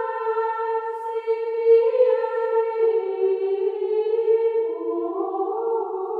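Background music of slow, sustained choir-like voices holding chords, which step down to new notes about three and five seconds in.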